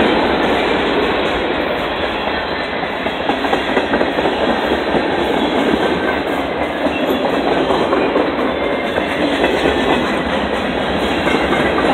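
Freight train of boxcars, hopper cars and tank cars rolling past close by: the steady, loud noise of steel wheels running on the rails.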